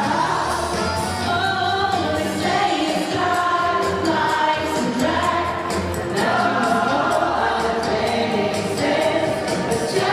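A large choir singing a pop song in harmony, with a steady beat under the voices.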